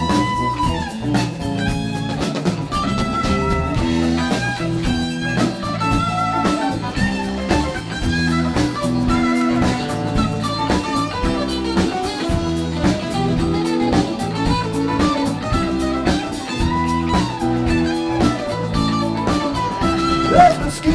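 Live band playing an instrumental stretch: two electric guitars over keyboard and a drum kit keeping a steady beat.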